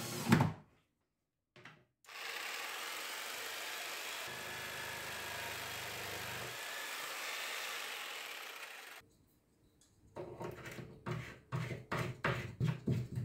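A cordless drill's short burst, then a corded jigsaw running steadily for about seven seconds as it cuts the white particleboard cabinet. Near the end, a run of separate plastic knocks and clicks as long plastic cabinet legs are fitted by hand.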